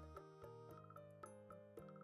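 Quiet background music made of a run of short, light melodic notes.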